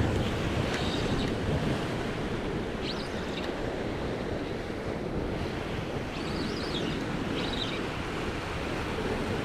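Sea swell washing against the offshore rocks, a steady rushing of surf, with wind buffeting the microphone.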